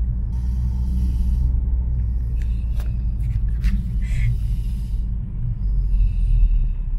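Steady low rumble of a moving car, engine and road noise heard from inside the cabin. It shifts deeper about five seconds in.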